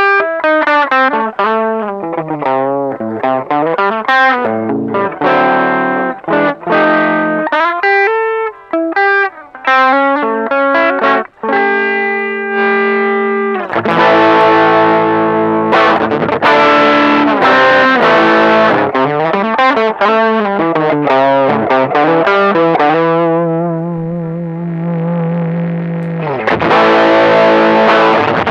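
Electric guitar played through a TC Electronic Dark Matter distortion pedal, demonstrating its distorted tone. Fast single-note licks run up and down, then about halfway through loud, ringing distorted chords take over, easing off briefly before a final loud chord near the end.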